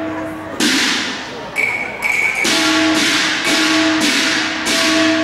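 Cantonese opera percussion: cymbals struck repeatedly, each crash ringing out and fading, the strikes coming quicker, from about one a second to two a second, over a steady ringing tone.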